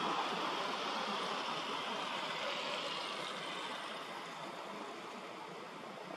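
Tyre and engine noise of a passing vehicle on the road, a steady hiss that slowly fades as it moves away.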